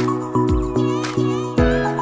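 Background music with a steady beat of about two and a half thumps a second under sustained chords.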